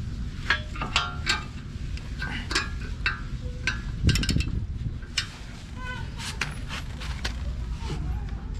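Metal clinking and knocking as rear disc brake caliper parts are fitted and handled: a string of short sharp clicks, some with a brief ring, and one heavier knock about four seconds in, over a steady low hum.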